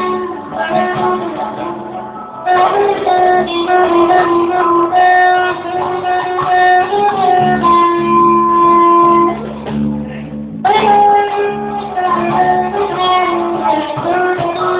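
A band playing a song, led by guitar, with sustained notes and chords; the sound dips briefly about ten seconds in, then carries on.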